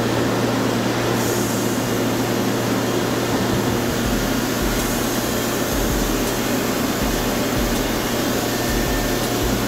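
Crane wire-rope winch machinery running: a loud, steady mechanical noise with a constant low hum, and an uneven low rumble from about four seconds in.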